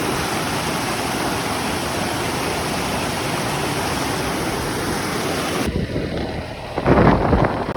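Rushing water pouring down in a steady roar of noise, like a stream spilling over a fall. Near the end it breaks off abruptly and gives way to a duller sound with a few louder bursts.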